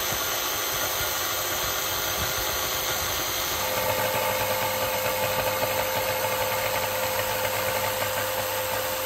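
Corded jigsaw running and sawing a small notch into a solid butcher-block slab, a steady saw noise throughout, with the motor's hum growing more pronounced about a third of the way in.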